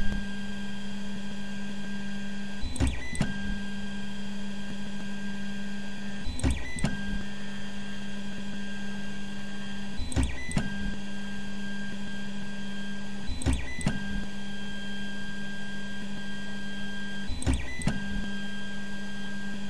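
3D printer stepper motors running with a steady whine as the print head travels. The whine breaks off briefly every three to four seconds, with a click or two, then resumes.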